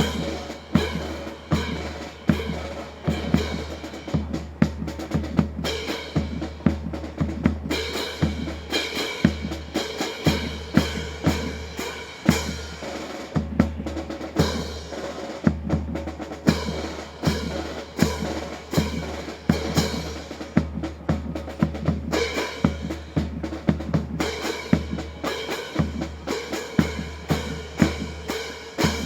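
Marching percussion playing a steady, driving rhythm of snare and bass drums, with rolls, accompanying a rifle drill routine.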